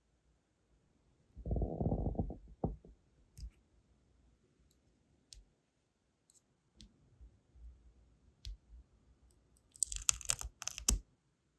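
Sealing wax being worked on a brass wax-seal stamp: a muffled low rub about a second and a half in, a few light ticks of metal tweezers, then near the end a loud brittle crackling as the hardened wax is peeled off the stamp face.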